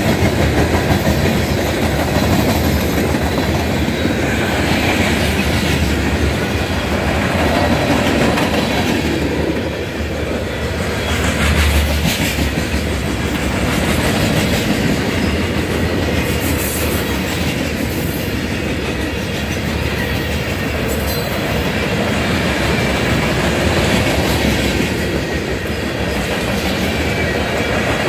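Freight cars of a passing train rolling by close up: a steady, loud rumble and rattle of steel wheels on the rails.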